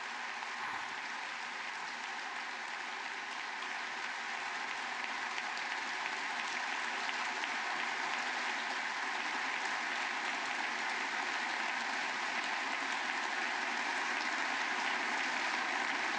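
Members of the US Congress giving a standing ovation: steady applause from a large crowd, growing slightly louder toward the end.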